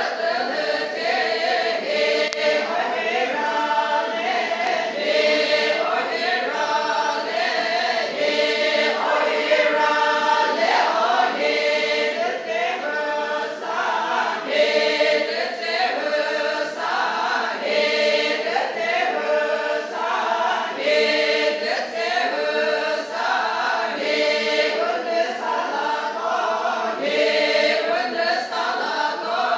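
A group of many voices singing together, a chant-like song in a steady, repeating rhythm.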